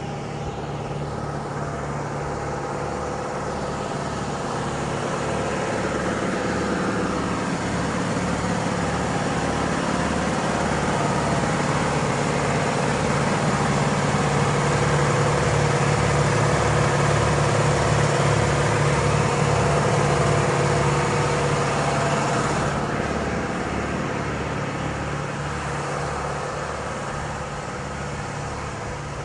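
Vehicle engine running steadily with a regular low throb. It grows louder through the first half and eases off over the last third.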